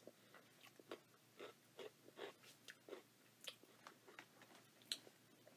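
Faint crunching of a person chewing baked Pepperidge Farm Goldfish Veggie crackers in Cheesy Tomato. Short crisp crunches come irregularly, a couple a second, with a sharper crunch near the end.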